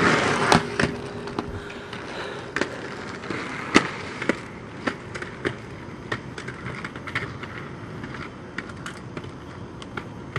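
Inline skates knocking and scraping on concrete as the skater walks up a ramp, with scattered sharp clacks of the skate frames and wheels against the pavement.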